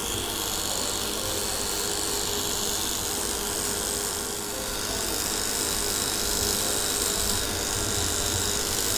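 Small pen-style electric trimmer buzzing steadily as it shaves hair off the sideburn.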